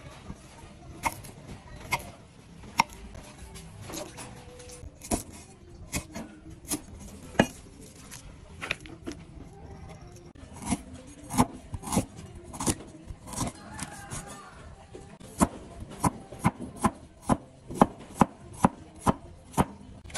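Knife and cleaver chopping vegetables on a wooden chopping block: scattered single knocks of the blade striking the wood, then a quicker run of cleaver chops, about three a second, in the last few seconds.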